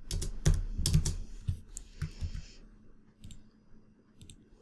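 Keystrokes on a computer keyboard, about six in the first two and a half seconds, then a couple of fainter mouse clicks.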